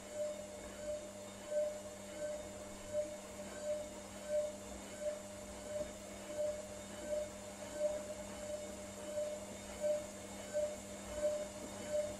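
Hotpoint Ariston Aqualtis washing machine running its wool program's rinse, its drum turning slowly in the water: a steady motor hum with a pulsing whine that comes back about one and a half times a second.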